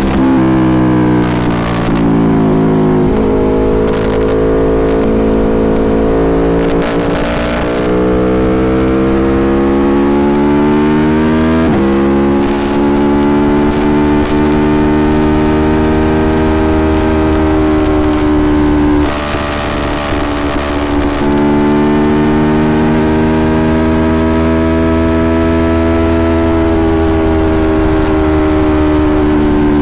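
Aprilia Tuono Factory motorcycle engine heard from on board, its pitch climbing under acceleration and dropping sharply at gear changes a few seconds in and again about twelve seconds in. About two-thirds of the way through, the engine note eases briefly under a rushing noise, then climbs steadily again.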